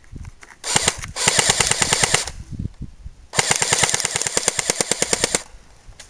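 Battery-powered airsoft Thompson M1A1 submachine gun firing on full auto in two bursts of rapid, evenly spaced shots, each about two seconds long, with a short pause between them.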